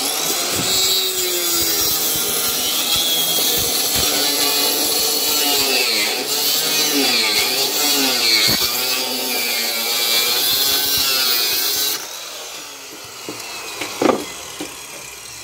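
Handheld angle grinder cutting through a slab, a loud grinding whine whose pitch wavers as the blade bites in. The cutting stops about twelve seconds in, and a single knock follows near the end.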